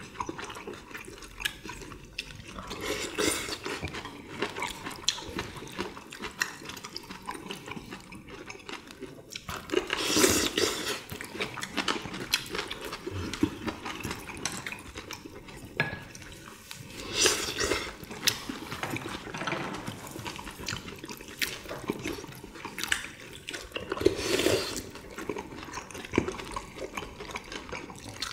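Close-miked eating of kimchi stew: wet chewing and slurping of the broth, with louder bursts now and then.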